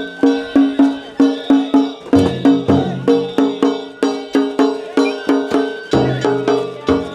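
Danjiri float musicians (narimono) playing drums and gongs in a steady, fast beat of about three strokes a second, each stroke ringing on briefly, with a deeper drum joining in some bars.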